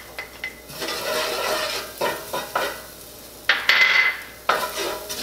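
Minced garlic sizzling as it goes into hot bacon grease in a stainless steel pan, with a loud clatter of kitchenware that rings briefly about three and a half seconds in.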